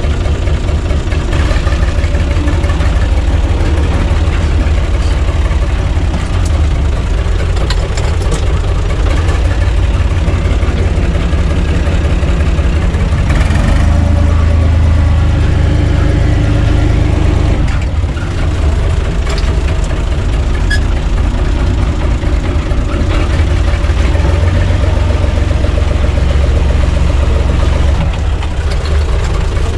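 UTB U445 DT tractor's diesel engine idling steadily with its muffler fitted, heard from the cab. It gets a little louder for a few seconds about halfway through.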